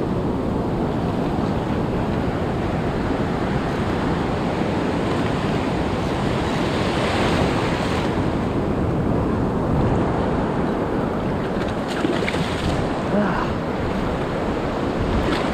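Ocean surf washing on a beach, with wind buffeting the microphone in a steady, heavy rumble.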